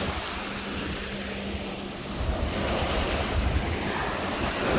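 Small waves breaking and washing up the shore, with wind buffeting the microphone; the surf grows a little louder about halfway through.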